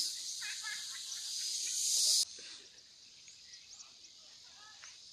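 A steady, high-pitched insect chorus buzzing in woodland, loud until it cuts off abruptly about two seconds in. It is followed by a fainter insect drone with a few short bird chirps.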